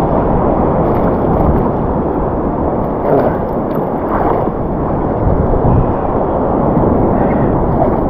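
Churning ocean surf and sloshing water, muffled through a waterproof camera housing with no external mic: a dense, steady rushing noise.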